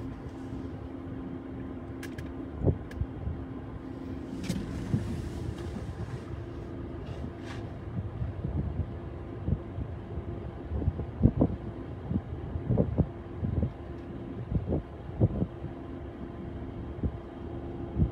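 Wind buffeting the microphone in irregular low gusts, over a steady low hum.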